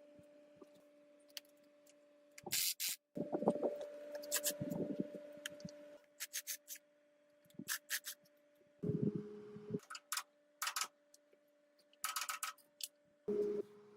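Intermittent clinks, scrapes and rubbing of hand tools working on a cast-iron diesel engine block, in short separate bouts, over a faint steady hum.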